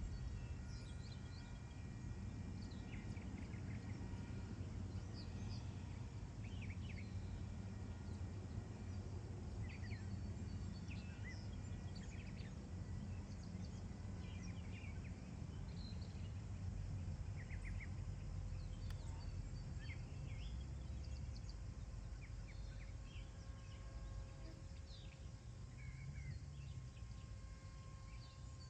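Outdoor ambience: small birds chirping in short scattered calls over a steady low wind rumble. A faint steady hum comes in during the last several seconds.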